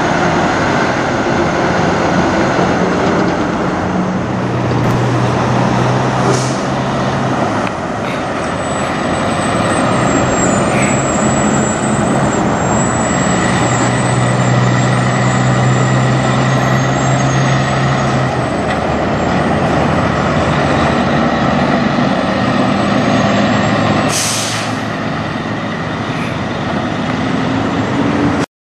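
Diesel semi-truck engines running as the tractors pull away, the engine note swelling twice. Two short air-brake hisses, one about six seconds in and a louder one near the end.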